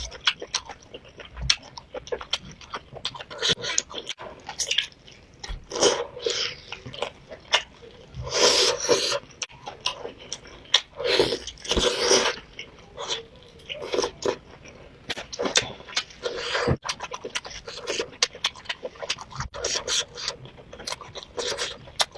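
A person chewing and biting food close to the microphone: a dense run of wet clicks and smacks, with louder mouthfuls about eight and eleven seconds in.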